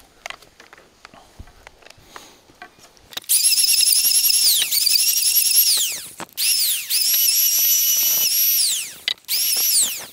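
Handheld electric power planer running in several short bursts, starting about three seconds in: a loud high-pitched motor whine that spins up and then winds down with a falling pitch each time, shaving the end of a square timber rail to fit its mortise.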